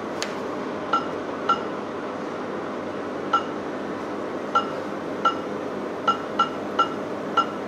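A shop till's keypad giving about ten short, high electronic beeps at irregular intervals as items are keyed in, over a steady low hum.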